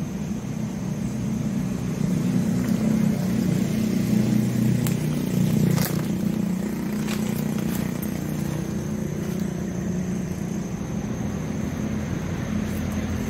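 Road traffic going by on the adjacent road: a steady low engine and tyre noise that swells for a few seconds as vehicles pass. A faint steady high whine and a few light clicks sit over it.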